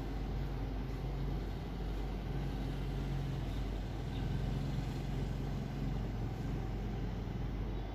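A steady low mechanical hum with a light hiss over it while onions sauté in a pan.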